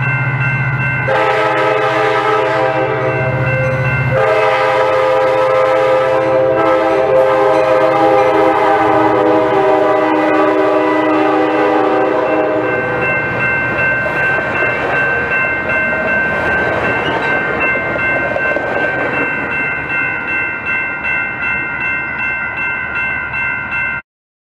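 Coaster commuter train's diesel locomotive sounding its multi-chime horn on approach: a short blast, then a long one of about nine seconds, over the engine's low drone and a steady bell ringing. Then the double-deck passenger cars roll past with rhythmic wheel clatter until the sound cuts off suddenly near the end.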